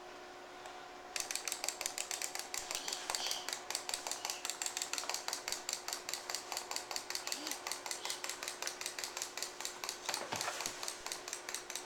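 Clockwork wind-up toy chicken running, its spring motor clicking fast and evenly at about six clicks a second. The clicking starts about a second in.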